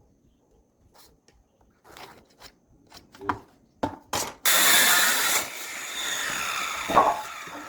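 Woodworking tool on wood: a few light knocks, then about four and a half seconds in a loud rasping noise that eases after a second and runs on for about two more seconds.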